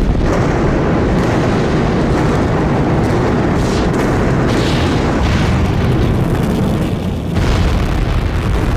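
Bomb blast explosion sound effect: a loud blast right at the start gives way to a long, heavy rumble with brief crackles, and a second blast comes about seven seconds in.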